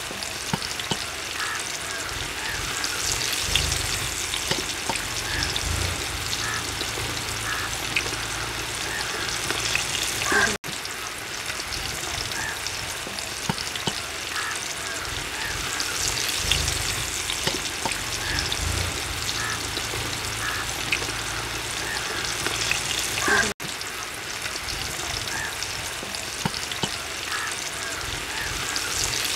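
Flour-coated chicken drumsticks deep-frying in hot oil in a black iron wok: a steady crackling sizzle with frequent small pops. It cuts out for a moment twice.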